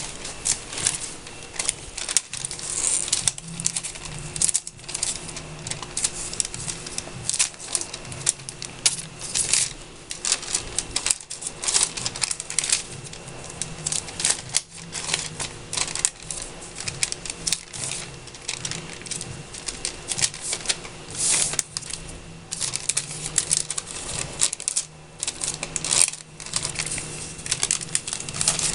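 Sheets of paper crinkling and rustling by hand, with irregular crackly clicks and taps as they are folded, pressed and rubbed on a desk. A faint steady hum sits underneath.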